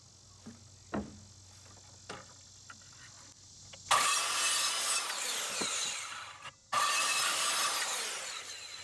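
Craftsman circular saw making two cuts through a pine board to point a stake, each cut lasting about two and a half seconds with a short break between. Before the first cut there are a couple of light knocks.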